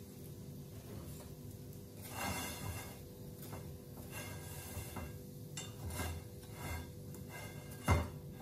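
Kitchen handling noises over a steady low hum: brief scraping and rustling and a few small knocks, with one louder thump near the end.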